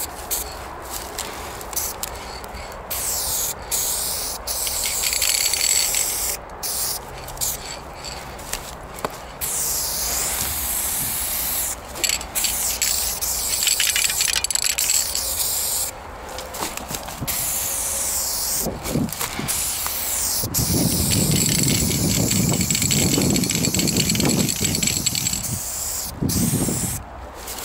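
Aerosol spray paint can hissing onto a wall in repeated bursts, some short and some several seconds long, with brief pauses between. A low rumble runs under the last long burst.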